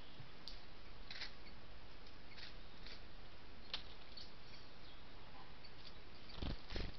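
Saffron-billed sparrow moving about on the forest floor close to the trail camera, over the camera's steady hiss. There are scattered faint high ticks, and near the end two louder scuffs.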